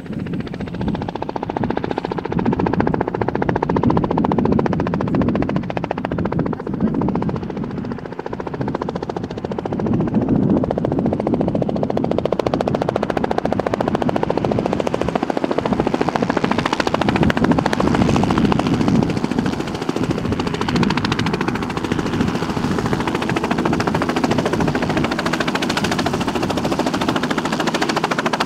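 Light two-bladed Robinson helicopter, rotor chopping rapidly over its piston engine, getting louder about ten seconds in and staying loud as it comes in and hovers low.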